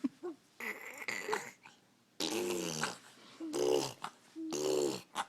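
A person making strange noises with their voice: about four short, wavering vocal cries separated by brief pauses.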